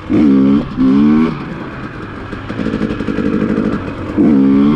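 KTM EXC 250 TPI single-cylinder two-stroke dirt bike engine revved in two quick rising bursts at the start, running steadier in between, then a third sharp rev near the end. These are throttle bursts to lift the front wheel in wheelie practice.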